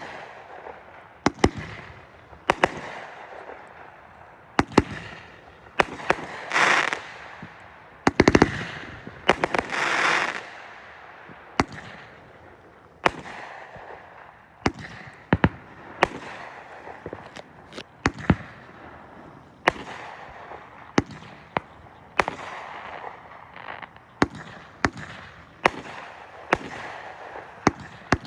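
Consumer fireworks going off: sharp bangs about once a second, with two longer stretches of rushing crackle about a quarter and a third of the way in.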